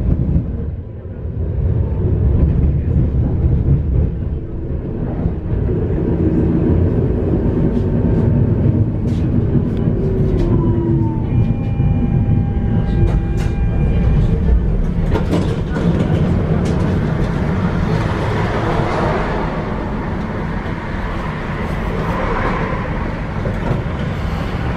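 Tram running along its rails, heard from inside the car: a steady low rumble with scattered clicks. About halfway through come brief whining tones, and a broader hiss rises in the last third.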